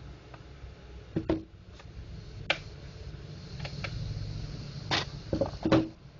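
Small screwdriver driving a screw back into the plastic end cap of an HP CE314A imaging drum unit: scattered clicks and light scraping. It ends with a few louder plastic knocks as the unit is handled and set down on the table.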